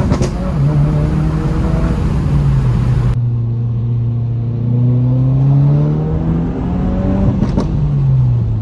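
2022 Subaru WRX's turbocharged 2.4-litre flat-four with an aftermarket exhaust, heard from inside the cabin while accelerating through the gears. The engine note climbs under load and falls at the upshifts near the start and about a second before the end. Each shift brings a sharp crack, the exhaust's backfire on the upshift.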